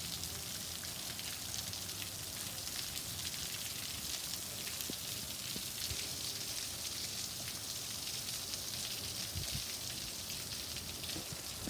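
Storm rain coming down steadily: an even hiss of many drops with no break or change.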